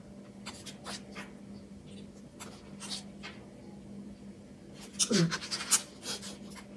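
Photobook pages of a K-pop album being handled and turned: scattered soft paper rustles and page flips, busiest about five seconds in, where a voice also makes a brief murmur. A faint steady hum runs underneath.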